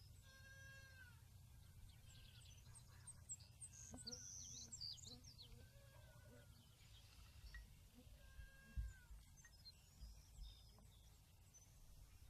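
Faint high chirps and short whistled calls, some falling in pitch, over a near-silent field.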